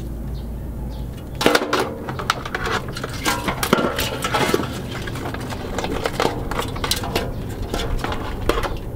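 Live mud crabs clattering and scraping against a metal basin as they are handled, with snips of scissors: an irregular run of sharp clicks and knocks that begins about a second and a half in.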